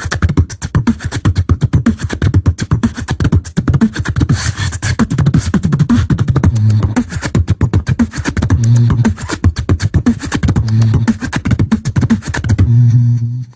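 Beatboxing: fast vocal percussion of clicks and snare-like hits, many a second, over deep hummed bass notes held briefly about every two seconds. Near the end the percussion drops away, leaving one held low bass hum.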